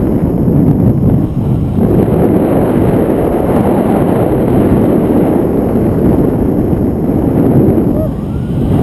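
Wind buffeting an action camera's microphone in tandem paraglider flight: a loud, steady low rumble, easing briefly near the end.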